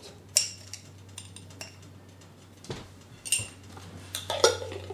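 A metal spoon clinking and tapping against cookware: scattered sharp clinks, a few ringing briefly, with a quick cluster near the end.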